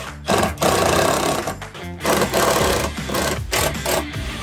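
A cordless impact driver drives screws in two long rattling runs, with a brief pause about two seconds in, as the sub panel box is fastened to the new wood framing.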